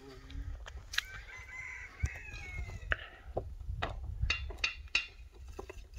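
A rooster crowing once, a long call starting about a second in that falls away at its end, with sharp knocks scattered through, more of them in the second half.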